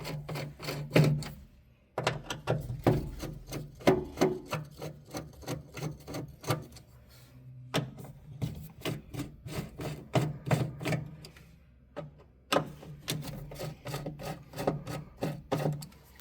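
Phillips screwdriver backing out the small screws that hold a circuit board, a run of irregular metal clicks and scrapes, several a second, with a few short breaks.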